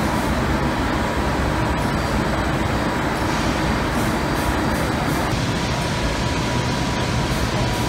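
Artificial-turf carpet backing coating machine running: a steady mechanical hum and rumble with a faint high tone held throughout.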